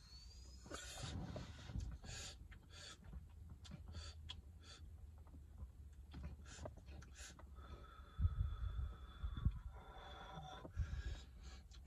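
A man drawing a hit from a vape pen, holding it, then breathing the vapor out near the end, with scattered small clicks and a few low thumps.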